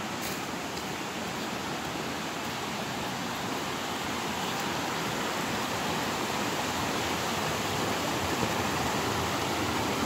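A rocky forest stream rushing over stones and small cascades: a steady rush of water that grows gradually louder.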